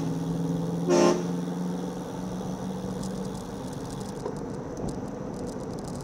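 A car horn gives one short toot about a second in, then traffic and wind noise.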